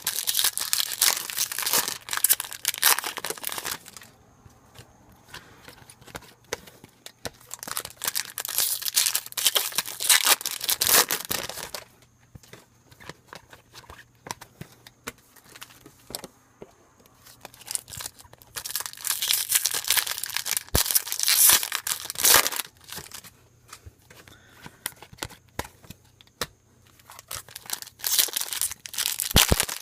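Foil trading-card packs of 2015 Topps Chrome being torn open and crinkled by hand. The sound comes in bursts of a few seconds, four times, with quieter gaps between.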